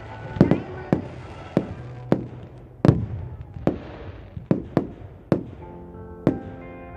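Aerial firework shells bursting in a rapid, irregular series of sharp bangs, about a dozen, some coming in quick pairs.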